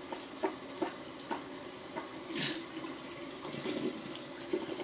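Water running steadily from a tap, with a few soft clicks and one short harsh burst of noise about two and a half seconds in.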